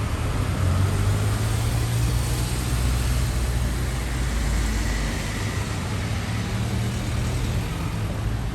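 A motor vehicle's engine running nearby amid street traffic noise, a steady low rumble that eases off about five seconds in.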